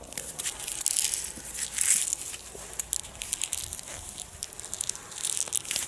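Close handling of a 3-inch firework shell and its taped fuse: uneven rustling and crinkling with a scatter of small crackles, loudest about one and two seconds in and again near the end.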